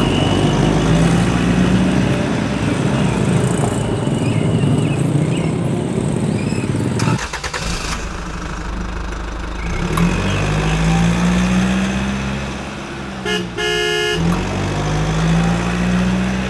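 Motorcycle and truck engines running close by in slow traffic, one engine rising and falling in pitch in the second half. A short horn toot sounds near the end.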